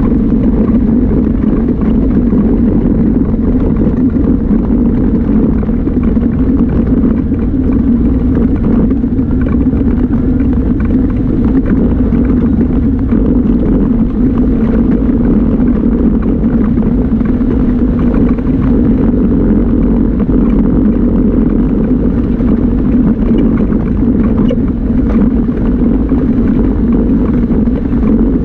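Yamaha Viking side-by-side UTV's single-cylinder engine running steadily as it drives along a dirt trail. The engine makes a constant low drone with little change in pitch.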